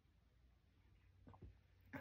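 Near silence: quiet room tone, with a couple of faint soft sounds about a second and a half in.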